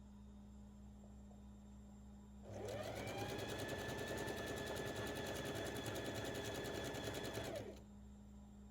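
Home sewing machine running: about two and a half seconds in it speeds up into a fast, even stitching rhythm for about five seconds, then slows and stops. A low steady hum sits underneath throughout.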